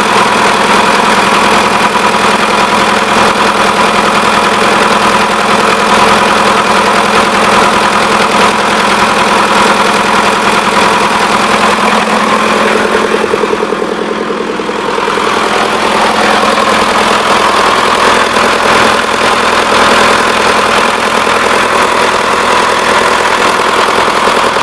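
Four-cylinder four-stroke A-41 diesel engine of a DT-75 crawler bulldozer running steadily at idle. The sound briefly turns quieter and duller about halfway through, then returns.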